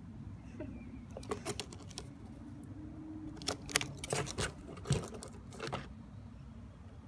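A parrot scrambling and picking about in cardboard boxes: scattered dry taps, clicks and scratches, thickest a little past the middle.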